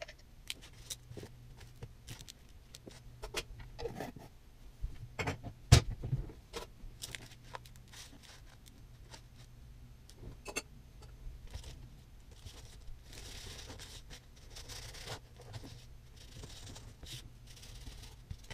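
Kitchen food-prep handling noises: scattered clicks and knocks of a jar, knife and bread on a paper plate, with soft scraping of a knife spreading on bread. A faint steady low hum runs underneath.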